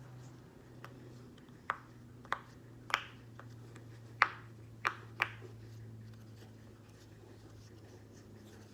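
Bubbles of a silicone pop-it fidget toy pressed one at a time, giving about six sharp single pops at uneven intervals over the first five seconds or so, then only a few faint clicks.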